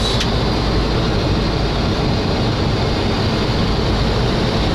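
Steady rush of airflow and engine noise heard on a Boeing 737 flight deck on approach, with the landing gear down and flaps extending. There is a faint click just after the start.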